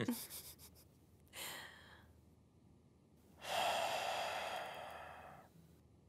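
A person's breathing: a short breath about a second and a half in, then a longer breathy exhale that fades away.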